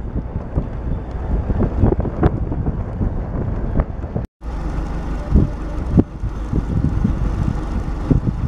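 UAZ jeep driving on a rough gravel road: wind buffeting the microphone over the vehicle's rumble, with frequent short knocks and jolts. The sound cuts out briefly about four seconds in, then the same kind of driving noise resumes.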